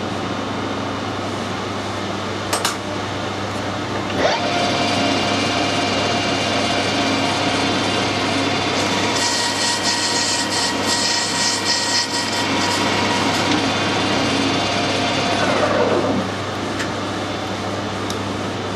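Metal lathe starting up about four seconds in and running steadily while turning a brass part, with a harsh high cutting noise for a few seconds in the middle. Near the end the motor winds down, its pitch falling as the spindle stops.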